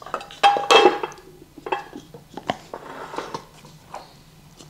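Chopped lettuce being moved by hand from a glass container into a ceramic bowl: leaves rustling and dropping, with two sharp clinks of dishware and a brief ring about half a second in, then softer taps and rustles.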